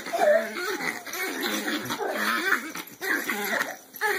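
A dog whining in a string of short calls, its pitch wavering up and down.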